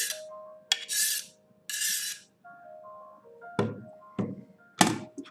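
Background music, a simple melody of held notes, over kitchen handling sounds: three short rasping scrapes in the first two seconds, then three sharp knocks of kitchenware about half a second apart, the last the loudest.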